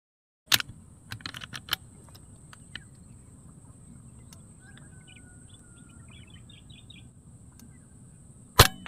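A PCP air rifle fires once near the end: a single sharp crack, the loudest sound here. Earlier, a quick run of sharp clicks starts about half a second in and lasts about a second, and a few faint bird chirps sound in the middle.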